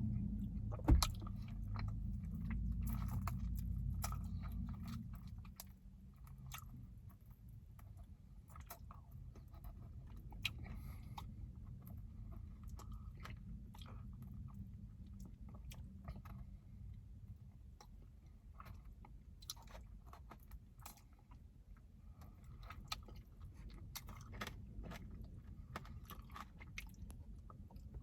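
A person chewing and biting into sticky fried chicken wings, with scattered wet smacks and small crunches, close to the microphone. One sharp click about a second in stands out.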